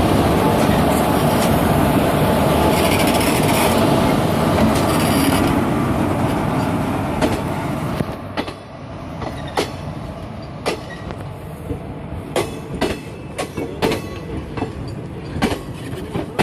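A passenger train's steel wheels rolling past close by, a loud, steady rumble. About eight seconds in the rumble drops away, leaving sharp, irregular clacks, often in quick pairs, as the wheels run over rail joints and the points where the train crosses from the loop line to the main line.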